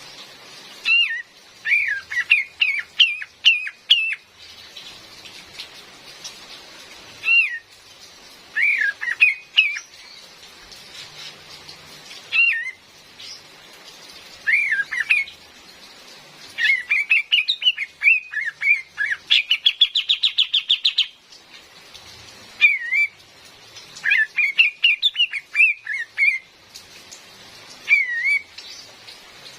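Female kapas tembak calling in short phrases of quick, chirpy notes every few seconds, with one fast rattling trill about two-thirds of the way through, over a faint hiss of rain.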